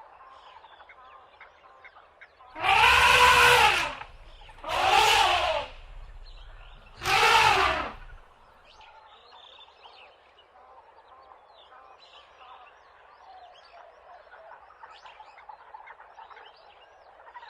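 An animal calling three times, each call about a second long and rising then falling in pitch, with faint chirps of small birds or frogs in the background between the calls.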